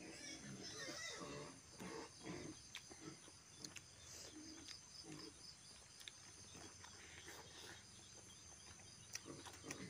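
Faint chewing and lip-smacking of people eating roast pork with their hands, in short uneven bursts with small clicks.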